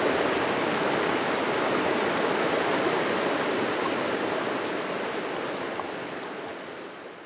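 Rushing water of a shallow, boulder-strewn river riffle, a steady noise that fades out over the last couple of seconds.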